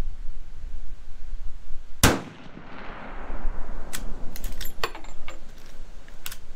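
A single shot from a Marlin 336 lever-action rifle in .30-30 Winchester about two seconds in, a sharp crack echoing away over about a second. A couple of seconds later comes a run of sharp metallic clicks as the lever is cycled.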